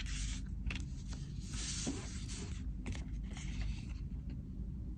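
Tarot cards being slid over a wooden tabletop and picked up by hand: faint scraping of card stock with a few soft taps.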